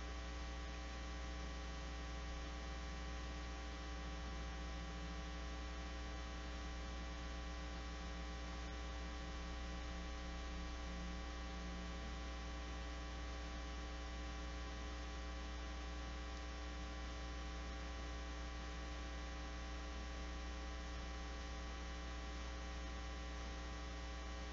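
Steady electrical mains hum: a low drone with a buzz of many steady higher tones stacked above it.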